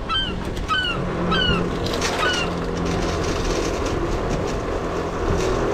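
Boat's washdown pump spraying water through a coiled hose and nozzle, a steady rush with a low hum under it that stops near the end. A bird gives four short falling chirps in the first two and a half seconds.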